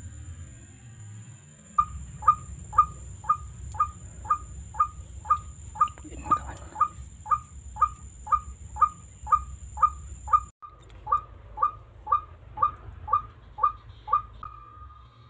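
White-breasted waterhen calling: a long run of short, loud notes repeated evenly about twice a second, with a brief break about two-thirds of the way through.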